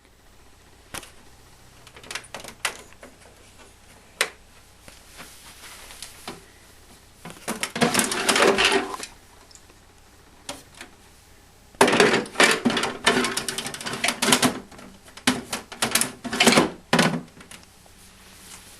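Handling noise: scattered clicks and knocks, with a burst of clattering and rattling about eight seconds in and a longer one from about twelve to seventeen seconds.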